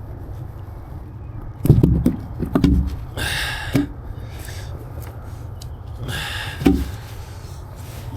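Work at a buried conduit junction box in the dirt: a few scattered knocks and thumps, with two short scraping rustles in between.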